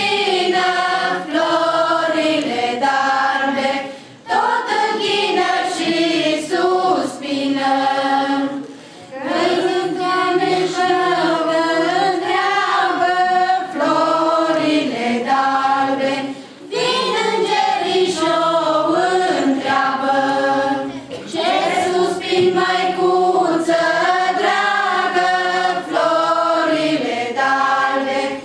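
A group of carol singers, women and girls with a man among them, singing a Romanian colindă (Christmas carol) together in phrases, with short breaks between phrases.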